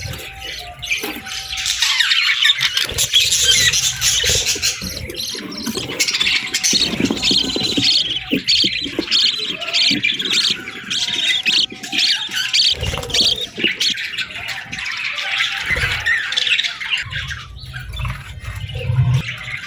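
Several budgerigars (parakeets) chirping and chattering together in a dense, unbroken flock chatter.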